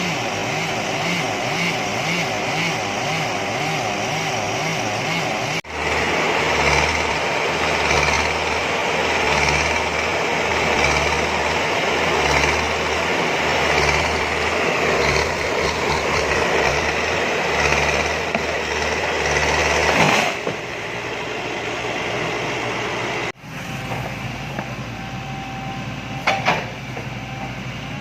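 Engines of tree-cutting machinery running in several cut-together stretches: first an engine whose pitch wavers up and down, then a louder engine with a low, pulsing throb, and then a quieter steady hum with a sharp knock near the end.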